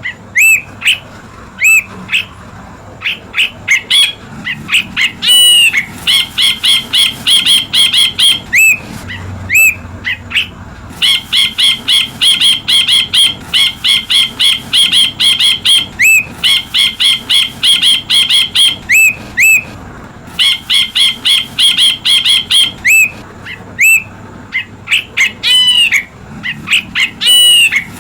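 Ashy bulbul (Hemixos flavala) calling: rapid runs of sharp, ringing chirps, about four a second, broken by short pauses, with single hooked, gliding whistled notes between the runs.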